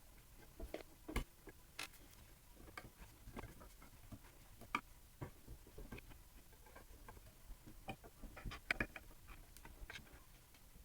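Irregular light clicks and taps of tiny screws and a small screwdriver being worked into the plates that clamp an SLA 3D printer's FEP film.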